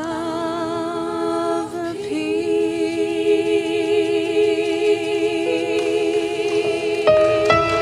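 A small vocal group singing a cappella, holding long notes in close harmony with vibrato, moving to a new chord about two seconds in and again near the end.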